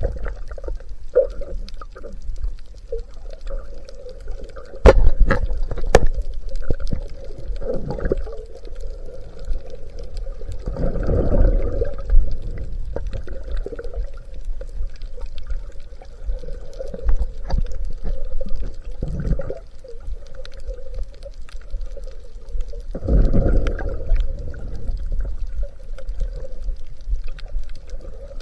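Muffled underwater water noise from a swimming snorkeler, rushing and sloshing steadily and swelling louder every several seconds. Two sharp knocks come about five and six seconds in.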